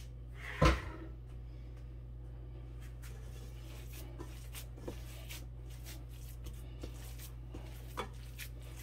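A single dull thump about a second in, then faint squishing and patting of bare hands kneading raw ground-beef meatloaf mixture in a pan, over a steady low hum.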